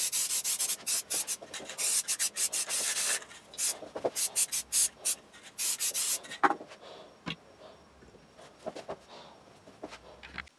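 Brisk rubbing strokes, several a second, in quick runs for about the first six seconds, then fewer and softer rubs with a couple of sharper ticks.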